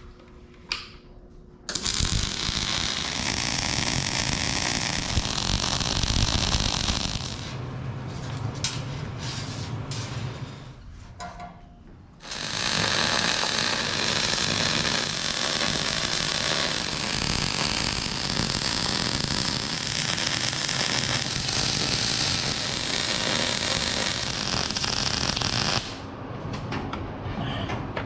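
Wire-feed welding arc crackling and buzzing on the steel bottom plate of a skid-steer sweeper bucket as stitch welds are laid. A weld runs for about five seconds starting two seconds in, then weakens with a few clicks. After a short pause a longer steady weld runs for about thirteen seconds and stops a couple of seconds before the end.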